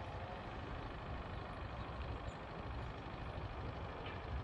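Faint steady background noise: a low rumble with a light hiss and no distinct event.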